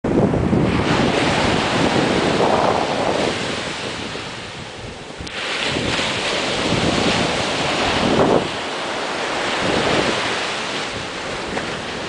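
Atlantic surf breaking and washing up a sandy beach and around a rock jetty, a continuous wash that swells and eases: loud at first, sagging about four to five seconds in, then surging again with the next wave and falling away after about eight seconds.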